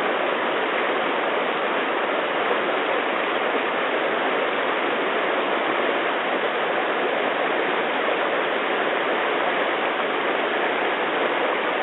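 The Rocky Branch river's water rushing steadily.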